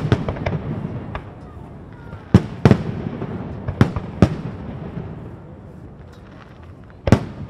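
Aerial fireworks shells bursting: sharp bangs coming in pairs a few tenths of a second apart, then a last one near the end, each trailing off in a rumbling echo.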